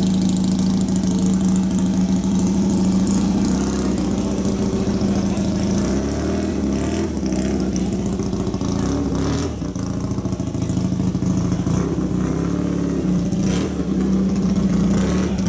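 Loud engine of a 1968 Fiat 500 Corsa race car, an air-cooled two-cylinder, running at a steady fast idle, its pitch wavering with throttle changes around the middle.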